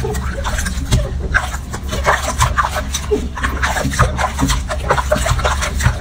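Hands washing a wet baby macaque in a sink: irregular splashing and rubbing of wet fur, a scatter of short wet clicks over a steady low hum.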